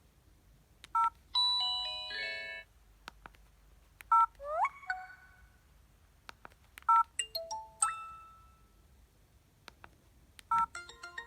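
LG B470 phone playing short previews of its preloaded ringtones one after another. Each is set off by a two-tone key beep, then a brief electronic tune sounds: a quick stepped melody, a rising swoop, a bright cluster of tones. A busier repeating ringtone melody starts near the end.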